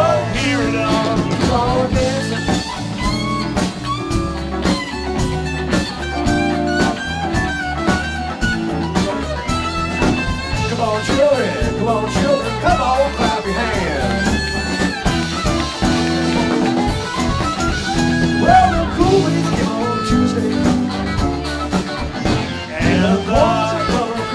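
Live band playing: electric guitars over bass and a drum kit, with a lead line that bends up and down.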